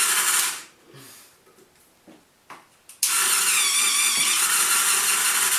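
Small electric motor of a homemade pulley-and-string cat toy running with a steady whir, winding down about half a second in. After a quiet stretch with a few light clicks, it starts again abruptly about three seconds in and runs steadily.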